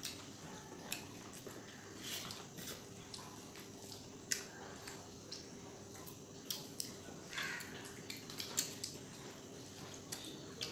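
Eating by hand: irregular soft clicks and wet smacks of fingers mixing rice and curry on banana leaves, with chewing and lip smacks, over a faint steady hum.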